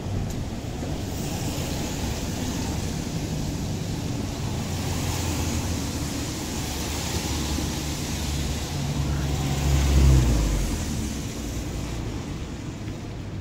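Road traffic: a steady rush of passing vehicles, with one engine growing louder, loudest about ten seconds in, then fading.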